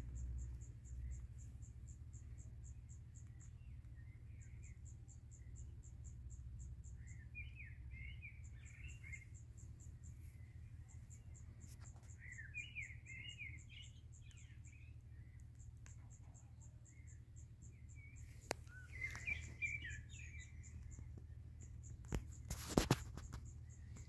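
Cricket chirping in a high, rapid pulsing trill that stops and starts in bouts, with bursts of songbird chirping three times. A sharp click near the end is the loudest sound.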